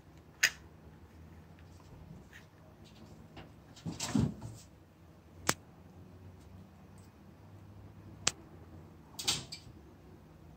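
A kitten climbing and jumping about wooden furniture: about five scattered knocks and taps, one sharp knock near the start and a louder, heavier knock about four seconds in, over a faint low hum.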